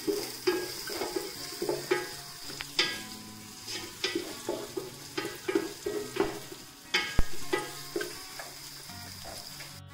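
Wooden spatula stirring and scraping sliced onions, green chillies and cashews as they sauté in oil and butter in a nonstick pot, with a light sizzle. The scraping strokes come about twice a second, the onions softening but not yet browned.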